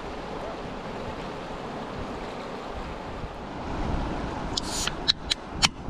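Fast river water rushing steadily, with wind on the microphone. A few sharp clicks or knocks come near the end.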